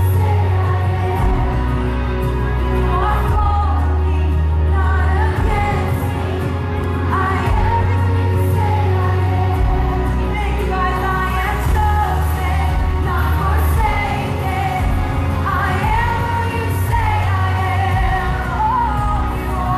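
Pop-style worship song: voices singing a melody over a band-style backing with a bass line that changes note every second or two.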